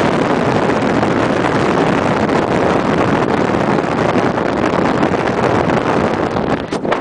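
Steady rush of wind buffeting the microphone of a vehicle travelling at about 50 mph, mixed with vehicle noise. It dips briefly near the end.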